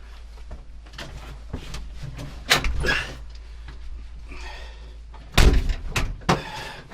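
A door shut with a heavy thud about five and a half seconds in, after a sharper knock around two and a half seconds, with small clicks and handling between.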